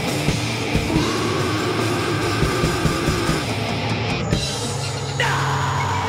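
Live powerviolence band playing at full tilt: fast, dense drum hits under a wall of distorted guitar and bass. A high tone slides down in pitch from about five seconds in.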